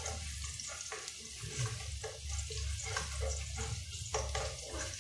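Sliced ginger sizzling as it sautés in hot oil in a pot, with a spatula stirring and scraping through it two or three times a second.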